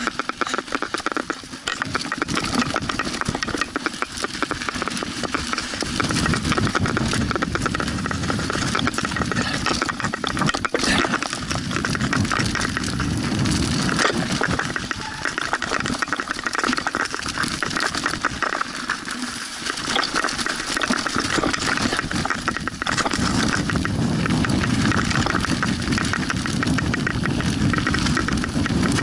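Mountain bike rattling and clattering without let-up as it descends a rough forest trail, with a low rumble of wind on the microphone over long stretches.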